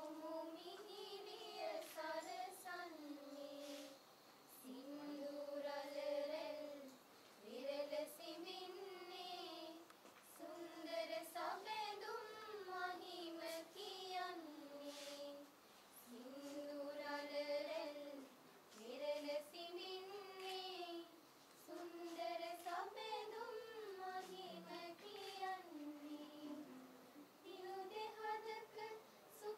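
A small group of young women singing a slow melody together in unison, without accompaniment, in phrases of two to three seconds with short pauses for breath between them.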